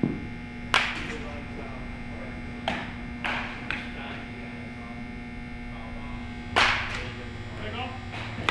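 Baseball bat striking balls in a batting cage: sharp cracks, the loudest about a second in and again near the end, with lighter knocks in between, over a steady low hum.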